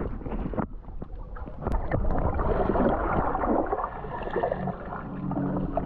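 Underwater camera audio: muffled gurgling and bubbling of water around a diving snorkeler in fins. Music fades in near the end.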